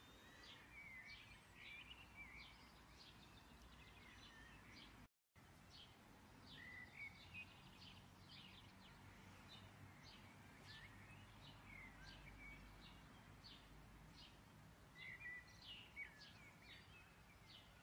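Near silence: faint background with scattered bird chirps, short rising and falling calls. The sound drops out completely for a moment about five seconds in.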